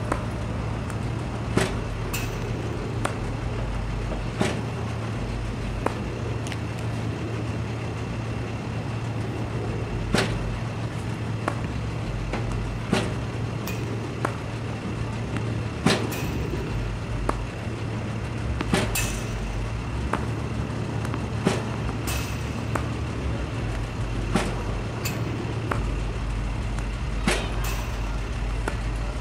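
Tennis ball machine running with a steady low hum, shooting out tennis balls with sharp pops at irregular spacing, roughly every one to three seconds, mixed with racket hits and ball bounces on the hard court.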